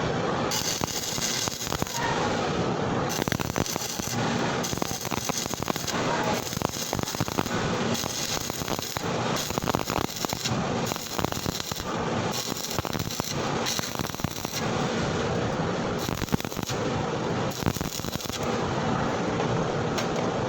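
Stick (shielded metal arc) welding arc crackling steadily with a dense run of sharp pops, the sound of an electrode being run at a high amperage setting.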